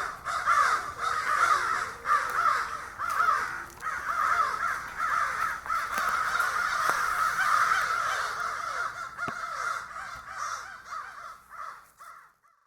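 A flock of crows cawing, many calls overlapping at once; the calling fades out near the end.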